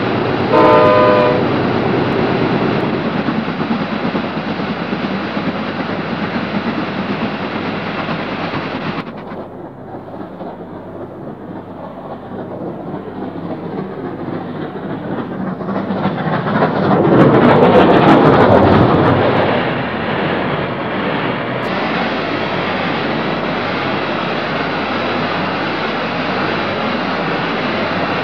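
Steam train running, with a short whistle blast about a second in. The noise eases for several seconds, then swells to its loudest a little past halfway.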